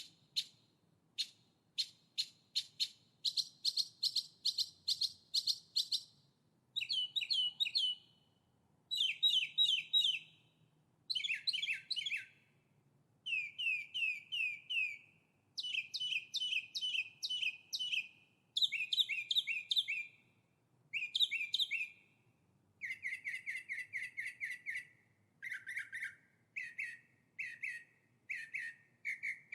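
Songbird singing. Separate sharp chirps at first, then a run of short phrases, each a quick trill of repeated notes lasting one to two seconds, with brief pauses between them.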